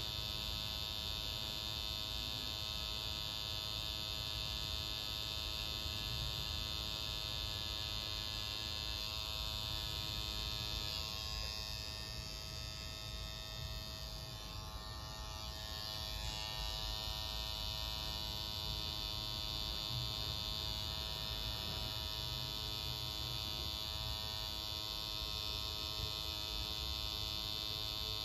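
Tattoo machine buzzing steadily as its needle drives red ink into the skin, dipping slightly in loudness partway through.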